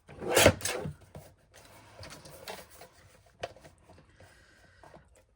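Cardstock and crafting supplies being handled on a table: a loud paper rustle about half a second in, then a few faint scrapes and taps.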